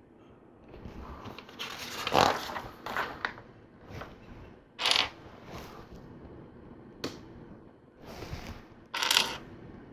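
Loose plastic LEGO pieces rattling and clicking as they are sifted by hand, in short irregular bursts.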